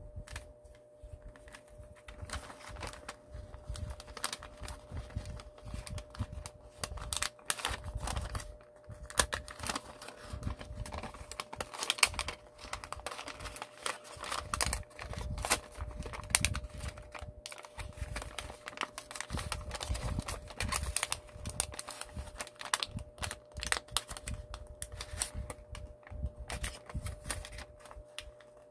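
A square sheet of origami paper being folded and creased by hand: irregular crisp rustles, crinkles and light clicks of paper against fingers and tabletop.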